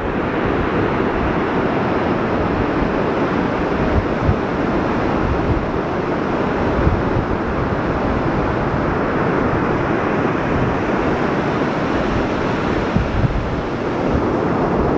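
Ocean surf breaking along a sandy beach, a steady rushing wash, with wind buffeting the microphone in low, uneven gusts.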